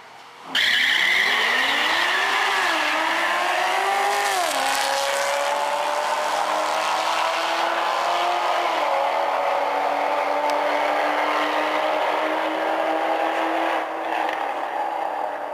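Two V8 street cars, a Cadillac CTS-V sedan and a Corvette, launch off the drag-strip start line and accelerate down the quarter mile at full throttle. The engine pitch climbs and drops at gear changes about two and four seconds in and again around nine seconds, then steadies and gets quieter near the end as the cars reach the far end of the track.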